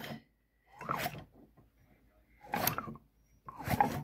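Old Poulan chainsaw engine turned over by hand three times to check for spark, each a short spin of about half a second, about a second apart.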